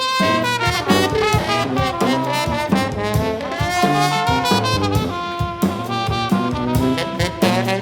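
A small brass band playing live jazz: trumpet and trombone carrying the melody over a sousaphone bass line and a drum kit.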